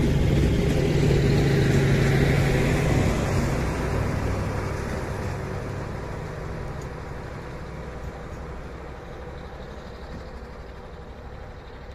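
Passenger train coaches rolling past on the rails, their wheel and rail noise loud at first and fading away steadily as the end of the train recedes.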